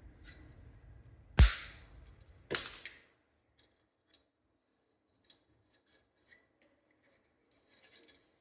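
Two sharp clacks of hand-tool work, about a second apart, each with a short bright ring, followed by a few faint light ticks.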